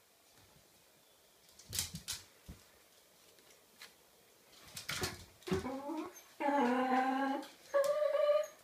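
Small dog whining and crying in several high-pitched cries in the second half, after a few short knocks. She is begging for the letters kept on the mantelpiece.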